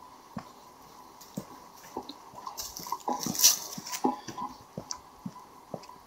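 Footsteps of someone walking, about two steps a second, with a brief louder rustle about three seconds in.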